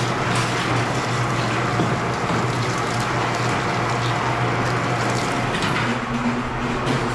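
Motorised wire-stripping machine running with a steady hum and even mechanical noise as a length of 500 MCM copper cable is fed through it.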